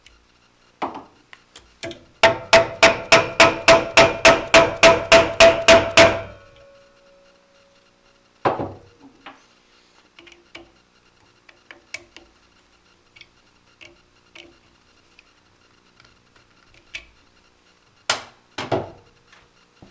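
Hammer tapping a metal drive pulley along the motor shaft to adjust it: a rapid run of about sixteen ringing strikes, about four a second, followed by a few scattered knocks.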